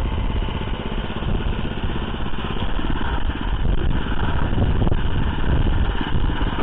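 Oka walk-behind tractor's Lifan single-cylinder petrol engine running steadily under load as the machine tills garden soil.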